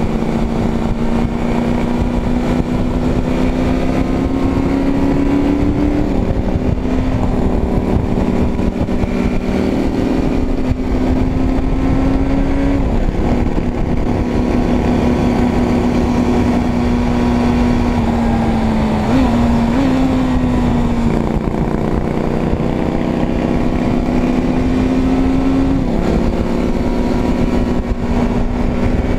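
Suzuki Bandit 600's inline-four engine running steadily under way, its note climbing slowly and then dropping back sharply four or five times, with wind rushing over the microphone.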